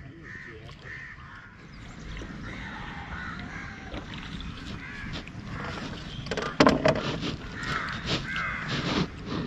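Crows cawing repeatedly. A few sharp, louder sounds break in about six and a half seconds in and again near the end.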